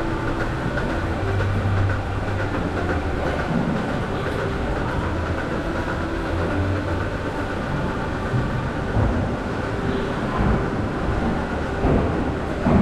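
Milking shed machinery running during milking: a steady mechanical rumble with a low hum and a few knocks near the end.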